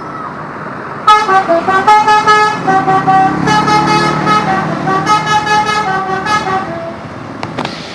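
A bus's 'telolet' multi-tone musical horn plays a quick tune of stepped notes. It starts about a second in and stops near the end, with a low engine rumble under it in the middle.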